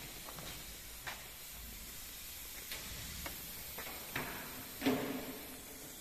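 Scattered light knocks and clicks from handling work on a truck cab, over a steady background hiss; the loudest knock comes about five seconds in.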